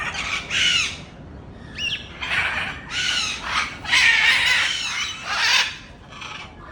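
Parrots squawking: a run of harsh, screeching calls, some overlapping and some bending in pitch, with the longest stretch about four to six seconds in.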